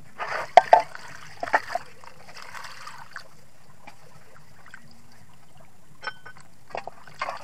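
Water splashing into a plastic basin of shredded coconut during the first couple of seconds, then a few small splashes and drips as the wet coconut strips are lifted and rinsed by hand.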